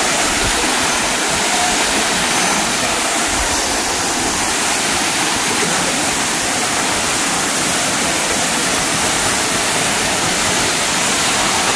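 Waterfall rushing: a loud, steady wash of falling water with no breaks.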